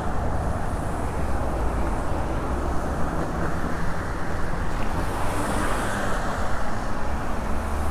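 Steady rush of wind over the microphone mixed with road and car-traffic noise while riding a fixed-gear bicycle along a city street.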